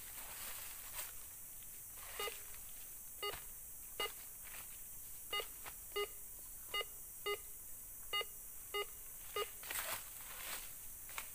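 Metal detector giving about ten short, pitched beeps at uneven intervals as its coil is swept over a freshly dug hole, signalling a metal target in the soil. Dry leaf litter rustles near the start and again near the end.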